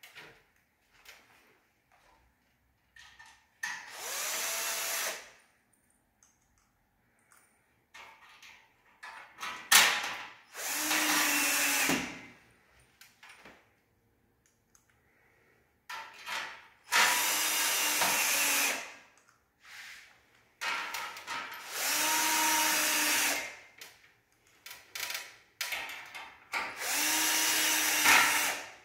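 Cordless drill/driver driving screws through a steel air-conditioner mounting plate into the wall, in five short runs of one to two seconds each. The motor slows at the end of each run, with small clicks and knocks of handling in between.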